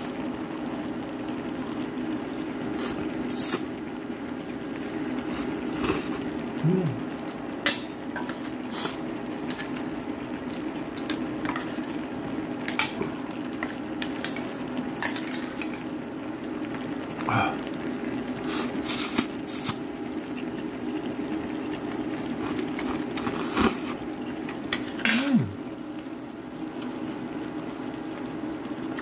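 A pot of kimchi and bean-sprout ramen boiling steadily, with chopsticks clicking and knocking against the pot every second or two as noodles are lifted out.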